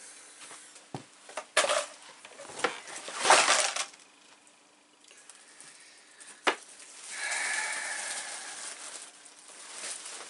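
Packaging being handled inside a cardboard shipping box: toy boxes and packing are moved about, giving a few sharp knocks and clicks and two longer spells of rustling.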